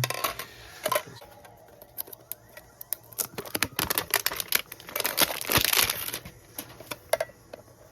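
Plastic wrapping crinkling and tearing as a small metal card tin is unwrapped and opened, with sharp clicks and taps from handling the tin. The crinkling is densest about halfway through.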